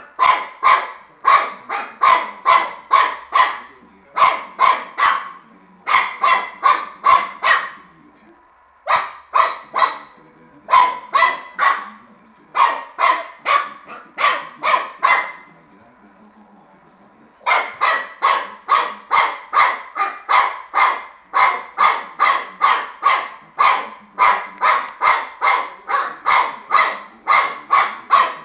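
Shar-pei puppy barking in long runs of short barks, about three a second, broken by a short pause about a third of the way in and a longer one just past halfway.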